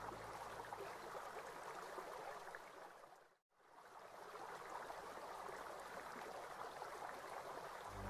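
Faint, steady flowing water, like a stream. It fades briefly to silence about three and a half seconds in, then fades back up.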